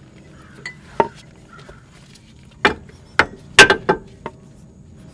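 Metal hand tools clinking and knocking: about seven sharp, irregular metallic knocks with a short ring, the loudest few bunched together about three and a half seconds in, as a seal-installer tool is fitted and worked against the transaxle.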